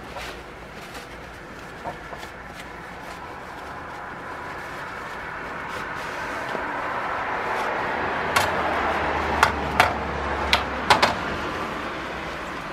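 Paper towel rubbing along the steel blade of a Disston keyhole saw, a steady rubbing that grows louder, with several sharp clicks from about eight seconds in as the blade is handled.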